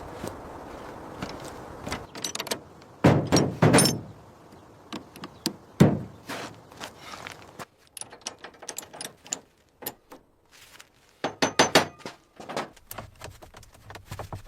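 Irregular knocks, thunks and light metallic clatter of parts and hardware being handled and fitted into place. There is a cluster of knocks about three seconds in, a single sharp hit about six seconds in, scattered small clicks, and another cluster of knocks near the end.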